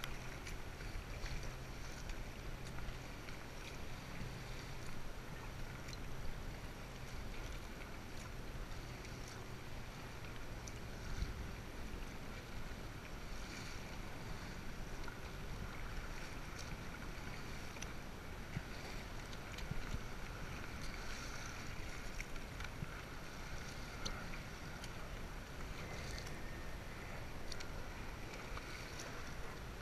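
Kayak paddle strokes and choppy water splashing and sloshing against the hull, with wind rumbling on the microphone.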